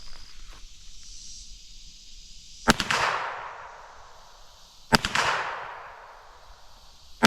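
Three shots from a GSG 1911 .22 LR pistol firing CCI Stinger rounds, about two seconds apart. Each sharp crack is followed by an echo that trails off; the third comes right at the end.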